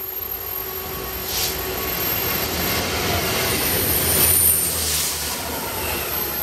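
Freight train of tank wagons passing at speed close by on the near track. Its noise builds to its loudest about four seconds in, as the diesel locomotive at the rear draws level, with a steady low engine hum under the rush of the train.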